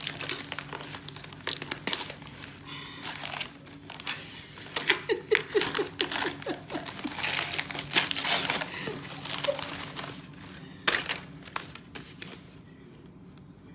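Gift wrapping paper crinkling and tearing as a present is unwrapped by hand: dense, irregular crackling with a sharp rip about eleven seconds in, dying down near the end.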